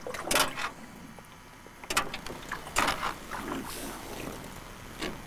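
A few sharp knocks and handling noises in a small fishing boat, with quieter moments between them.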